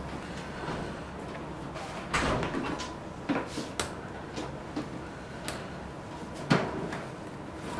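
Forceps cracking heavy tartar off a dog's teeth: a series of irregular sharp cracks and clicks, the loudest about six and a half seconds in.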